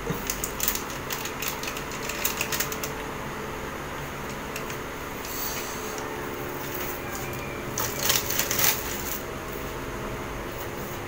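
Two short bouts of light clicking and rattling, one at the start and one about eight seconds in, as objects are handled, over a steady room hum.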